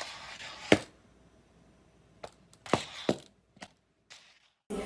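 About six short, sharp clicks and taps. The loudest comes under a second in, and the rest are spread between two and four seconds in. A brief hiss of noise sounds at the start.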